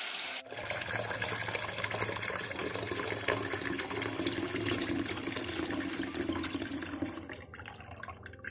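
Tap water running into a small stainless steel pot in a stainless steel sink, filling it, tapering off near the end. It opens with a brief sizzle of chicken frying in a pot, cut off after about half a second.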